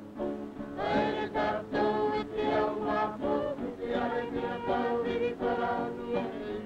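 Cook Islands group song: many voices singing together to a guitar, the singing swelling louder about a second in.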